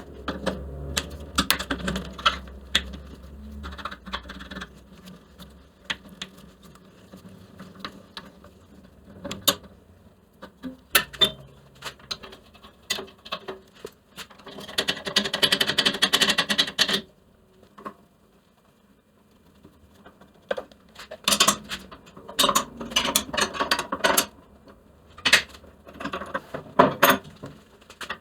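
Metal bandsaw parts and hand tools clicking, knocking and clinking as the saw is taken apart, with a dense rattling stretch of about two and a half seconds midway.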